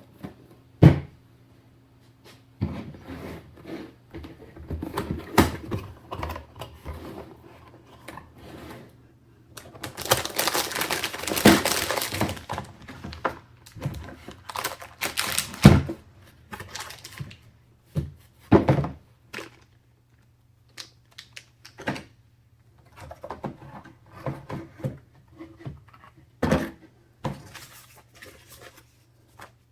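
Hands handling PC parts and their packaging: scattered knocks, clicks and taps with a longer noisy stretch, like packaging being handled, from about ten to twelve seconds in.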